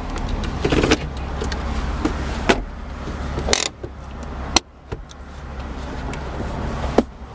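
Cabin of an idling 2009 Chevy Cobalt: a steady low engine hum under a series of plastic clicks and clunks as the automatic shift lever and then the parking brake lever are handled, with the sharpest click about four and a half seconds in.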